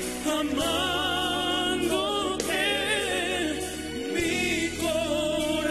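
Male voices singing a slow Spanish-language pop ballad over band backing, holding long notes with vibrato.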